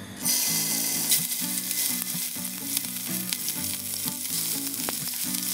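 Raw chicken breast pieces dropped into hot vegetable oil in a frying pan. The oil bursts into a sizzle just after the first piece goes in and keeps sizzling as more pieces are added, with a few light clicks.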